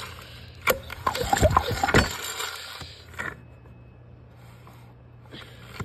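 The engine of a 1956 David Bradley being turned over by hand, giving sharp clicks and rubbing, rasping noise for about the first three seconds, then falling quiet. The engine turns freely.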